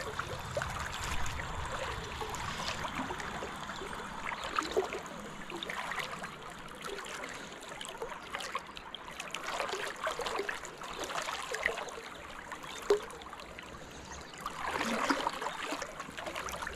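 River current flowing and gurgling close by, with swells of louder rushing now and then and a few small ticks.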